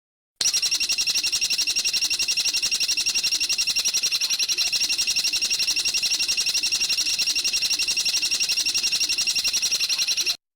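A songbird's rapid, high trill of even, closely spaced pulses, held steady for about ten seconds. It starts and stops abruptly.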